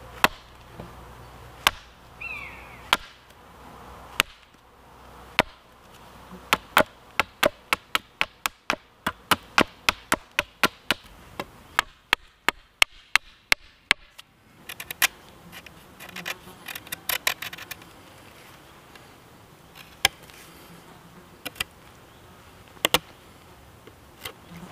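Small axe chopping into a green wooden stick held on a tree stump, shaping a flat, screwdriver-like end. Sharp, separate strikes come in a quick run of about four a second in the middle, with sparser strikes before and after.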